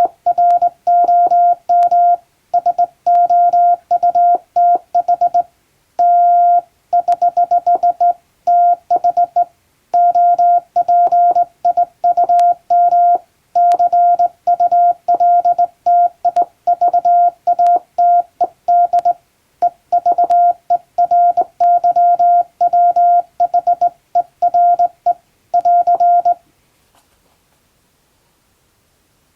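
Morse code sent by hand on a JRC telegraph key: a single mid-pitched beep keyed on and off in dots and dashes, grouped into words with short gaps, spelling out a practice English-language telegram. The keying stops about three seconds before the end.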